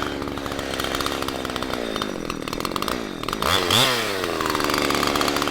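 Two-stroke Husqvarna 372XP clone chainsaw idling, with one quick throttle blip that revs it up and lets it drop back to idle about three and a half seconds in.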